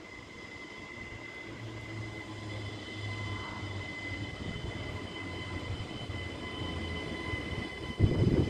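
NMBS Siemens Desiro ML (AM08) electric multiple unit approaching: a steady high whine over a low hum, slowly growing louder as it comes in. Near the end a sudden loud low burst of noise.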